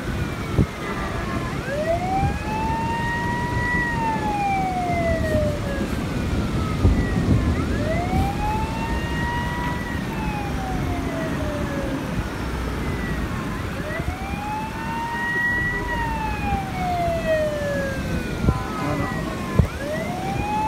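A siren wailing slowly, its pitch rising, holding and falling in a cycle of about six seconds; three full wails, with a fourth starting near the end. Under it runs a steady low rushing noise.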